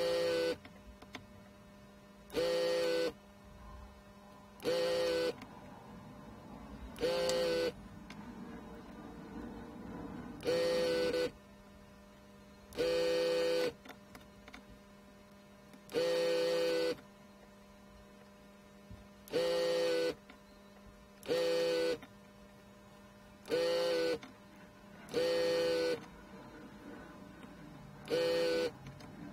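Vacuum pump of a Xytronic LF-8800 desoldering station buzzing in short bursts, about a dozen times, each under a second long, as the desoldering gun sucks molten solder out of a chip's through-hole pins one after another.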